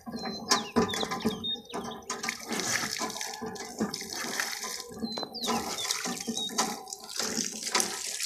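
Water pouring from a hand pump's spout and splashing onto the concrete platform as the pump handle is worked, with short clicks and splashes throughout.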